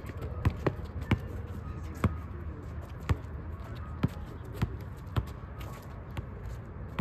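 Basketball bouncing on a court: about nine sharp thuds at uneven gaps of half a second to a second.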